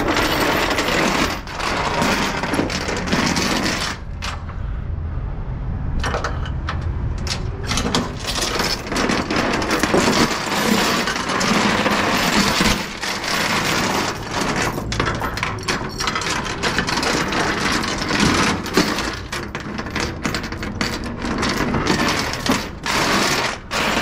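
Steel tie-down chain rattling and clanking as it is dragged and pulled hand over hand across a metal flatbed trailer deck, with many sharp link-on-link and link-on-deck clinks. It eases off briefly about four seconds in, then picks up again.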